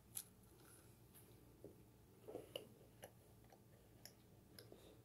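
Near silence with a few faint, scattered clicks and crunches of a child biting into and chewing a macaron.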